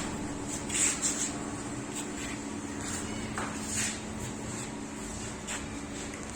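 Jewellery induction melting furnace running: a steady low hum with a thin, high, steady whine, broken by scattered short clicks and brief hisses.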